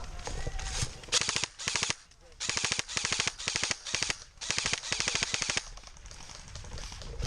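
Airsoft gun firing several rapid full-auto bursts of clattering shots, starting about a second in and stopping a little before the end.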